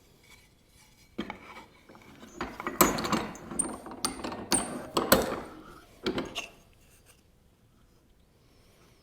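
A wooden workpiece being handled and marked on a workbench: rubbing and scraping of wood with several sharp wooden knocks, from about a second in until about six and a half seconds in.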